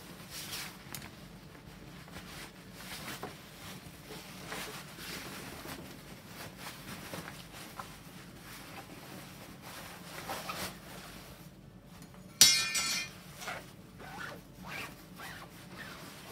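Fabric rustling and small knocks as the textile cover of a pram canopy is pulled off its metal frame ribs, with one loud, short rasp about twelve seconds in.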